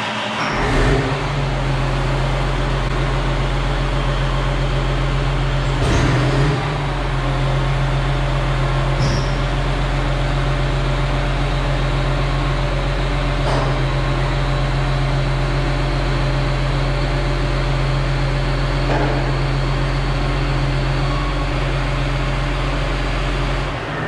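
Tractor engine running at a steady idle, just started, driving the hydraulics that raise the round baler's tailgate. A few faint clicks and knocks sound over the engine.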